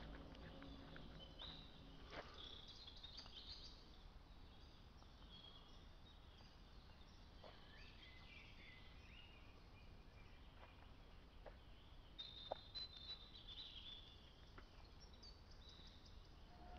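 Faint woodland ambience: scattered high bird chirps and a few light clicks, with no low groaning sound.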